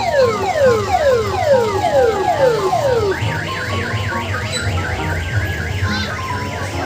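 Electronic siren on an odong-odong mini train, sounding a run of falling sweeps about two a second, then switching about three seconds in to a fast up-and-down warble.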